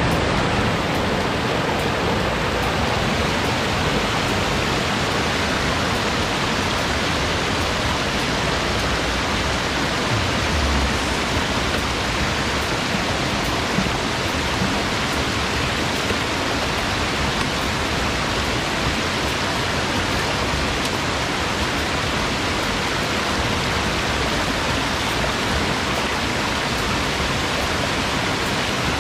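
Shallow rocky river rushing steadily over stones and small rapids.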